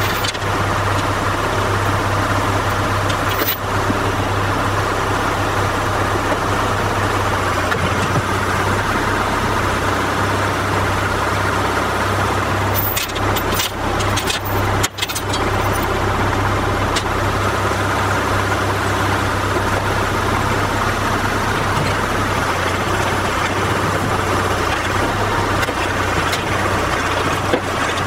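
Farm tractor's diesel engine idling steadily, with a cluster of short sharp knocks about halfway through.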